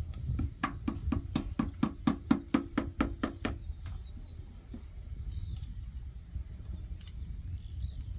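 A quick, even run of about sixteen metallic clicks, roughly five a second, lasting about three seconds, from a hand tool being worked on a bare engine block under reassembly. After that the tool goes quiet, and faint bird chirps sound over a low rumble.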